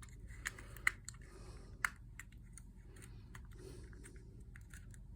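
Light, irregular plastic clicks and faint rustling as a small folding mini drone and its packaging are handled, with a couple of sharper clicks about one and two seconds in.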